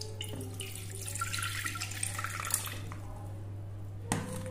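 Water pouring from a steel bowl into an aluminium pressure cooker, splashing onto the metal pot for about three seconds. A single sharp knock comes near the end.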